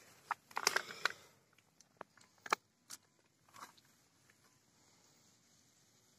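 Faint crackles and sharp clicks of close handling: a short cluster about a second in and a few single clicks up to about four seconds, then near silence.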